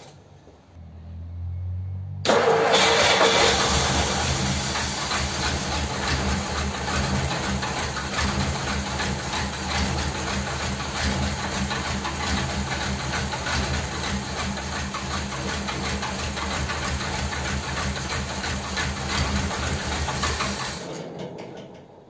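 1957 Ford Thunderbird V8 cranked briefly on the starter, catching about two seconds in and running on its four-barrel carburettor, then stopping near the end. Starting from cold, it doesn't sound very happy: the carburettor, refitted with its original float bowl and metering body, still isn't running it right.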